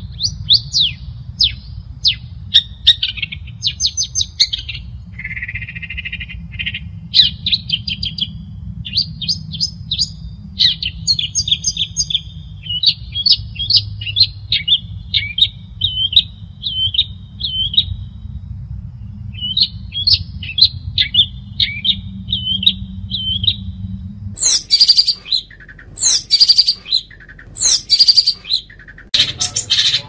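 Long-tailed shrike (cendet) singing a fast, varied song of chirps and short trills. About 24 seconds in, a low background hum stops and the bird switches to loud, harsh calls about once a second.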